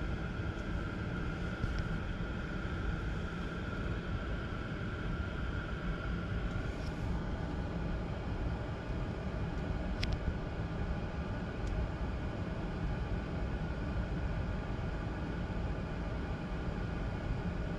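Steady low rumble inside a stopped car's cabin as it idles. A faint high whine fades out after about seven seconds, and there is one light click about ten seconds in.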